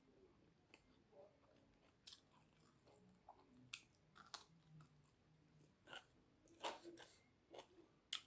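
Faint close-miked chewing and mouth clicks of someone eating, in sharp, irregular soft smacks, the loudest near the end.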